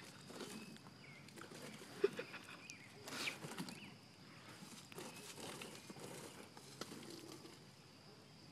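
Faint rustling and handling noises with a few light knocks, over a steady, faint high-pitched hum.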